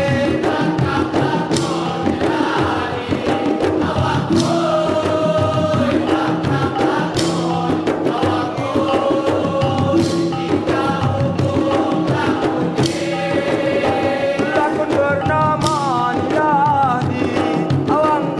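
Traditional Mek Mulung ensemble playing dance music: frame drums and barrel drums keep a steady rhythm under a wavering melody line, with a strong accent about every three seconds.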